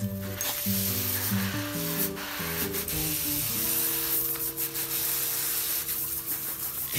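Garden hose spray nozzle hissing steadily as its jet of water splashes into a dog's open, biting mouth, over background music.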